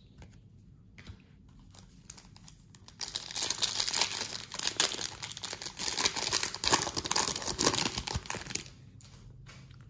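Foil wrapper of an Upper Deck MVP hockey card pack crinkling and tearing as it is torn open by hand, starting about three seconds in and lasting nearly six seconds.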